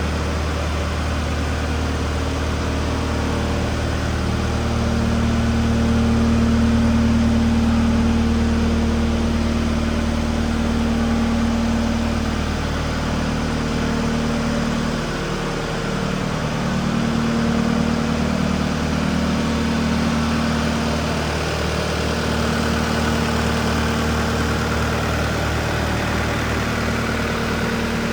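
Diesel engine of a 2019 Case SR240 skid steer idling steadily, getting a little louder for a few seconds about a quarter of the way in.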